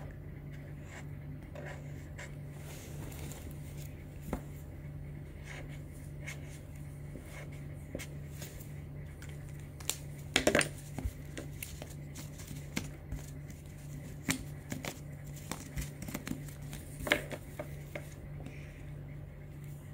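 Scattered taps, clicks and rustles from hands handling marker pens, an oil pastel and a sheet of card on a tabletop, loudest about halfway through and again near the end, over a steady low hum.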